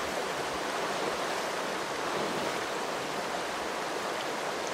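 Fast river rushing over granite boulders and riffles, a steady, even rush of water.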